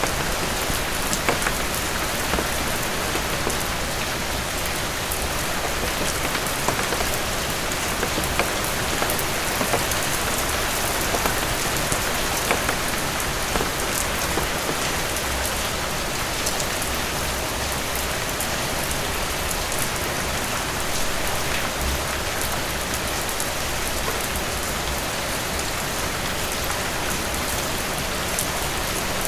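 Heavy rain falling steadily, a dense even hiss with the close patter and ticks of individual drops striking a surface.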